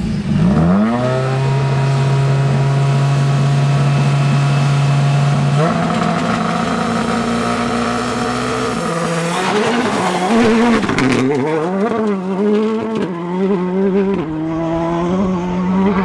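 Rally car engines: one revs up and is held at a steady high note, stepping up in pitch about six seconds in; then from about nine seconds a rally car's engine revs up and down over and over, with lifts and gear changes, under hard driving.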